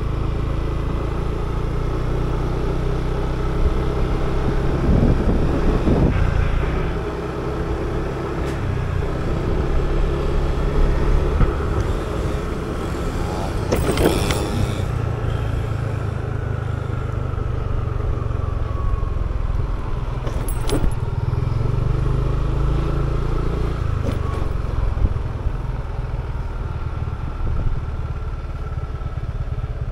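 Yamaha motor scooter's engine running under way, its pitch rising and falling with the throttle over a steady low rumble. A brief sharp noise about halfway through.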